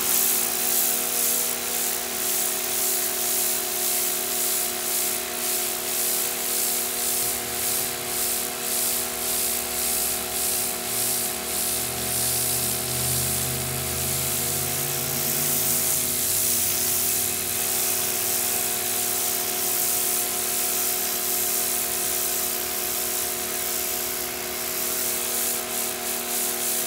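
Electric pressure washer running: a steady motor-and-pump hum under the loud hiss of the high-pressure spray hitting the concrete driveway, the hiss pulsing evenly.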